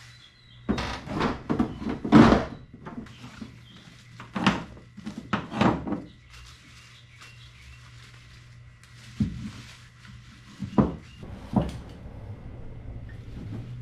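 Gear being handled and set into a plastic truck-bed storage box: a series of separate knocks, clunks and rustles, busiest in the first six seconds and again a few times after about nine seconds. A faint steady hum runs underneath.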